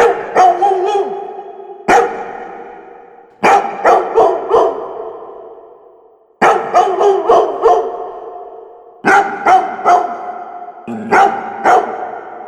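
Labrador retriever barking in bursts of one to six quick barks every two to three seconds, each burst trailing off in a long fading echo.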